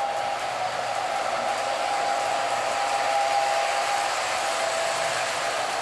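Lionel 8652 Santa Fe F3 toy locomotive running with its Pullmor motor and gears giving a steady whine, along with the rolling of its train on O-gauge track. The motor is working hard to pull a heavy train, the transformer turned up high.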